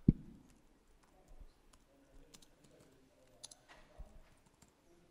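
A single dull thump right at the start, then faint, scattered key clicks of typing on a laptop keyboard.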